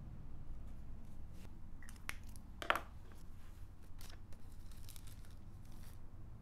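Paper and thin tissue paper being handled, giving a few short rustles and crinkles, the loudest a little under halfway through.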